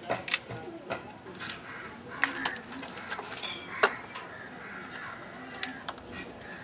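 Scattered sharp clicks and light clatter of crab shells being handled against plastic crates.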